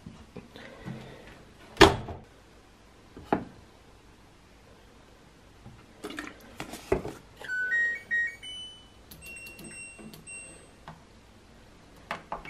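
Front-loading washing machine being loaded and set: a loud thump about two seconds in as the door is shut and another knock soon after, a few clicks, then the machine's electronic power-on tune of stepped rising beeps followed by several single beeps as the program buttons are pressed.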